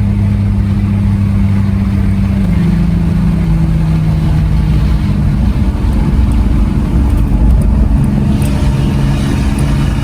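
1998 Jeep Cherokee XJ's 4.0-litre inline-six running loud through a catless 2.5-inch side-dump exhaust with a mini Cherry Bomb muffler. The steady low drone drops in pitch in steps about two and a half and five and a half seconds in, then shifts again near the end.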